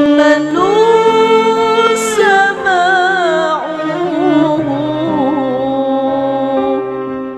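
Music: a solo voice sings long, ornamented held notes of a slow Arabic devotional song over a steady, sustained accompaniment.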